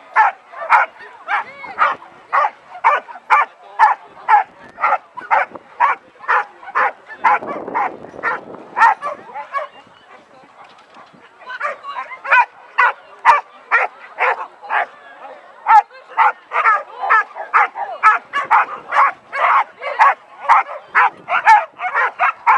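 A dog barking rapidly and repeatedly, about two to three sharp barks a second, with a break of a couple of seconds near the middle.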